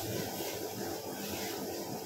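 Steady rushing noise of a commercial kitchen's gas burners running under a wok and a pot, with the extractor hood going.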